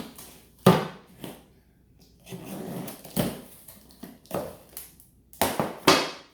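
Handling noises: several sharp knocks and thumps with scraping and rustling between them, the loudest about a second in and a pair near the end.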